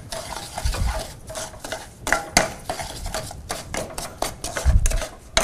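Wooden spoon briskly beating egg yolks and sugar in a small copper saucepan: a quick, irregular run of scrapes and knocks against the pan, with a ringing note from the metal. Two duller thumps come about a second in and near the end.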